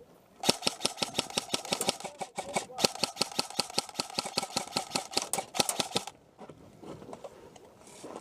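Krytac CRB airsoft electric gun (AEG) firing full-auto in two bursts, about two seconds and then nearly four seconds long, at roughly ten shots a second, with the gearbox whine running under the shots.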